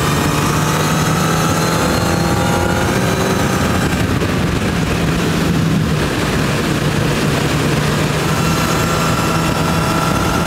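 Honda CB1000R's inline-four engine running at road speed, under heavy wind noise.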